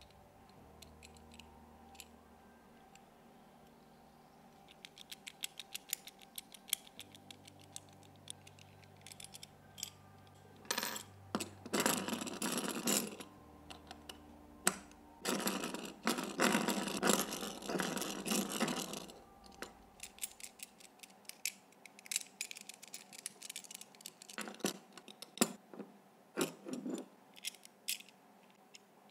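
Small metal puzzle padlock being worked with its key: rapid metallic clicks and scrapes of the key and lock parts, with two longer spells of loud rattling and clatter, one about a third of the way in and one around the middle.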